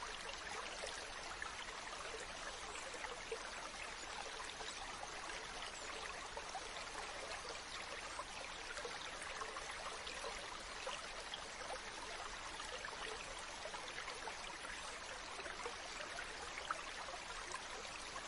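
Stream water running steadily, a continuous rushing babble flecked with small splashes.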